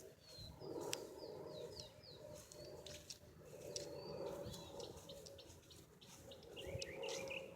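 Small birds chirping faintly: a quick run of short falling notes about a second in, then another series of lower falling chirps near the end.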